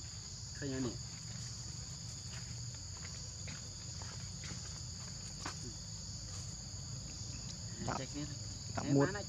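Steady shrill insect chorus, a continuous high drone with no breaks.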